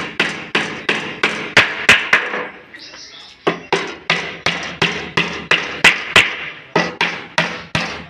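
Carpenter's hammer striking repeatedly, about three blows a second with a short pause about three seconds in, each blow ringing briefly, as when driving nails into wood.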